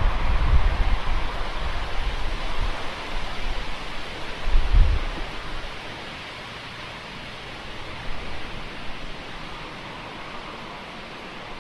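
Wind on an outdoor nest-camera microphone: a steady rushing hiss, with low rumbling buffets near the start and again about five seconds in.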